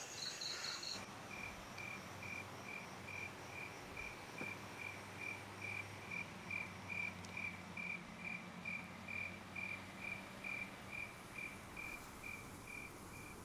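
A cricket chirping in a steady rhythm, about three short high chirps a second, over a faint low hum.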